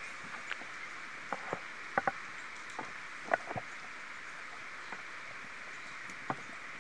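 Outdoor ambience: a steady high hiss with a handful of short, sharp clicks and taps scattered through it, several in quick pairs.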